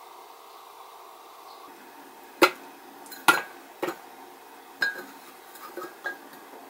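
Frozen banana chunks dropped one at a time into a glass blender jar, each landing with a sharp knock: four loud knocks followed by a few lighter ones.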